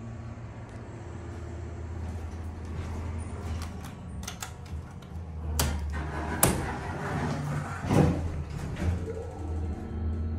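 Sliding car doors of a Dover Impulse hydraulic elevator closing, ending in a thump about eight seconds in. Sharp clicks from the small hinged door on the car operating panel come a couple of seconds before. A steady low hum runs underneath.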